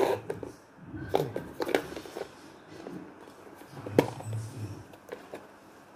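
Small clicks and knocks of toys being handled, with one sharp click about four seconds in as a round plastic Majorette toy case is moved.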